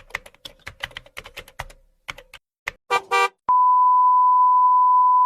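Computer keyboard typing in rapid, irregular clicks, then two short electronic beeps, then a long, loud, steady beep tone like a censor bleep starting just past the middle.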